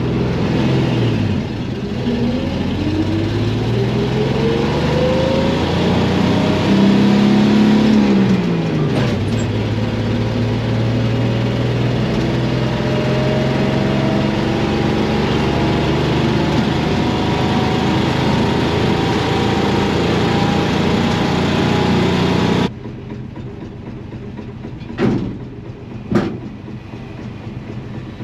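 A 1963 Chevy C10's 235 straight-six engine, heard from inside the cab, accelerating hard on a quarter-mile run while a sticking parking brake drags. Its pitch climbs, drops at a gear shift about eight seconds in, then climbs again. It cuts off suddenly a few seconds before the end, leaving a quieter background with two sharp knocks.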